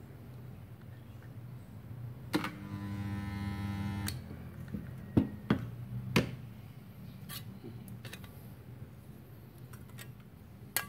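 Multipro portable 2.5 kVA mini spot welder's transformer buzzing for under two seconds as it spot-welds two 0.5 mm steel sheets, cut in and out with a click; the sheets fuse completely. A few sharp clicks follow as the lever and metal are handled.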